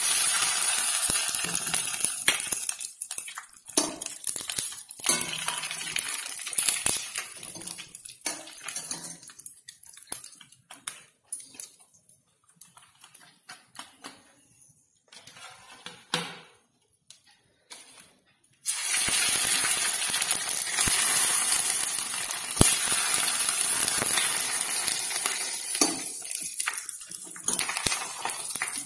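Sago crisps (saggubiyyam vadiyalu) deep-frying in hot oil in a steel kadai: a sizzling hiss that dies down to near quiet midway, then comes back suddenly and loud, with a few clinks of a wire skimmer against the pan.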